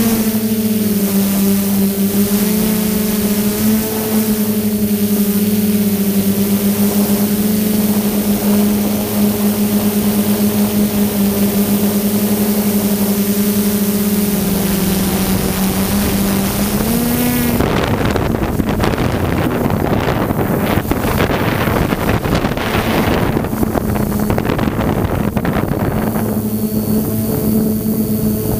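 DJI F550 hexacopter's motors and propellers humming steadily. About 17 seconds in, the hum wavers in pitch and is buried under a loud rushing noise for several seconds. Near the end the steady hum returns.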